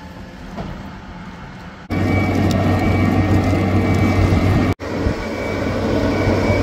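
Boatyard travel lift running: a steady low engine drone with a high warning beeper sounding in short repeated beeps. The sound jumps louder about two seconds in and cuts out for an instant near five seconds.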